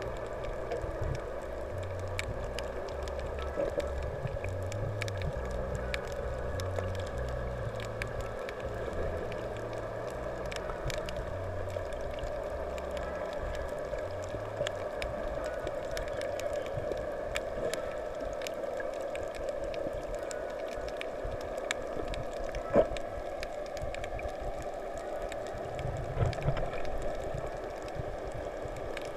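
Underwater sound picked up by a snorkeling camera: a steady muffled wash of water with a low murmur, scattered through with small sharp clicks and crackles, and one louder click about 23 seconds in.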